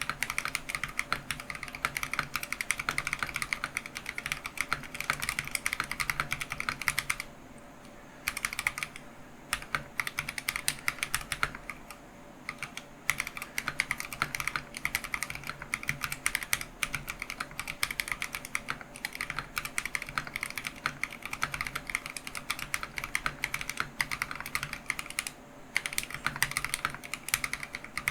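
Typing on a Keychron V1 mechanical keyboard with lubed Akko Matcha Green switches and Idobao Lavender Cave and Tai Hao Sakura Machi keycaps: a rapid, continuous stream of keystrokes. It breaks off in short pauses about seven, eleven and twenty-five seconds in.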